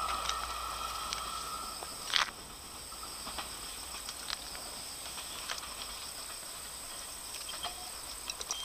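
Insects trilling with steady high-pitched tones amid the grass beside the track. A lower steady tone cuts out about two seconds in, close to a single sharp click, and faint scattered ticks follow.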